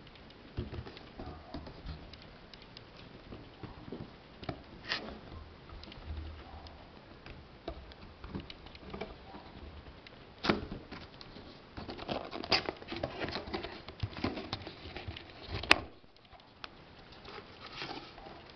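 Hands handling and turning a cardboard figure box: irregular taps, scrapes and rustles. A single sharp click late on is the loudest sound.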